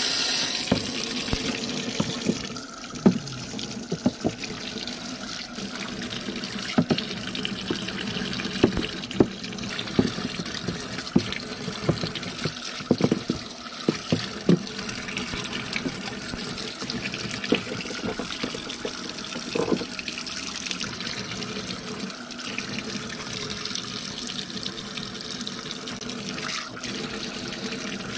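Water running steadily from a tap, with scattered sharp clicks and knocks throughout.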